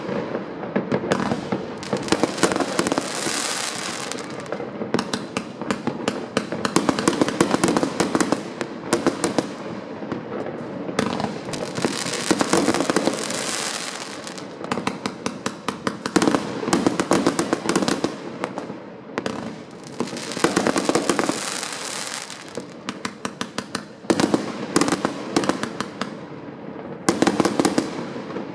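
Many fireworks going off at once: rapid, overlapping bangs and pops from aerial shells and firecrackers, with three spells of dense crackling from crackle-effect shells.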